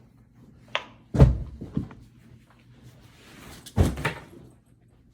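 A few knocks and thuds: a sharp click, then a heavy thud followed by a lighter knock, and another thud a couple of seconds later.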